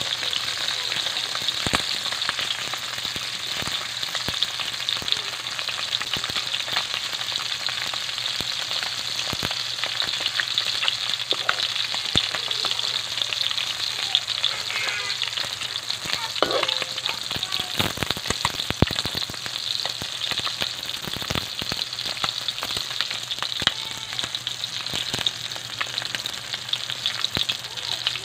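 Needlefish pieces frying in shallow oil in a metal wok: a steady sizzling hiss with frequent small crackles and pops.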